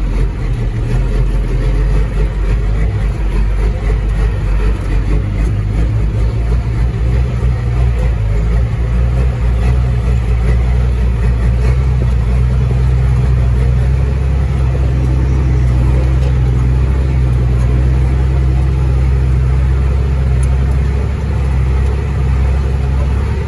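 Caterpillar 3306 inline-six diesel in a 1999 Ford Sterling truck running steadily with a deep, even drone that settles to a very constant note about ten seconds in.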